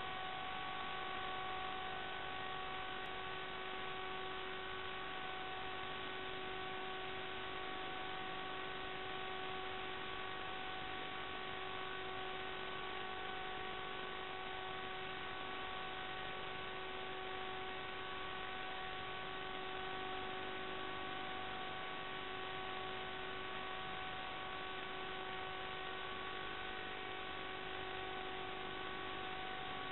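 Steady electrical hiss with a constant hum of several fixed tones that never changes pitch or level: recorder or video-link noise, not the sound of the flight itself.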